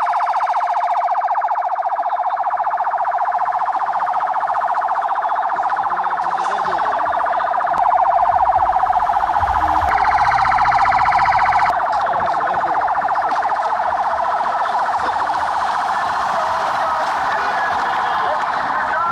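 Sirens of several police patrol cars sounding at once, their wailing tones overlapping into a continuous wavering chorus. It swells louder for a few seconds midway, with a low rumble underneath.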